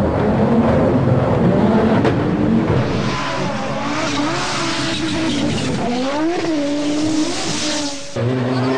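Audi Quattro rally car's turbocharged five-cylinder engine revving up and dropping back through gear changes as the car comes down a gravel stage, with a rushing noise of tyres and gravel growing as it nears. A little after eight seconds the sound cuts abruptly to a different, steadier engine note.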